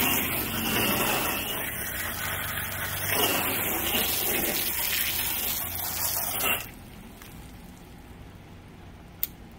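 Water jetting from a pistol-grip garden hose spray nozzle, a steady hiss of spray hitting the trailer's side, cutting off sharply about seven seconds in as the trigger is let go. A single sharp click near the end as the nozzle's setting dial is turned.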